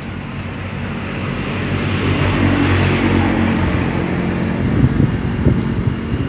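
A motor vehicle passing close by, its engine hum and road noise growing louder over the first two or three seconds and then holding. Wind buffets the microphone near the end.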